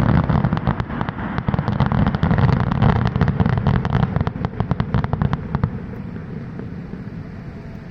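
Distant fireworks display: a dense, rapid run of crackling bangs over a low rumble, dying away about six seconds in.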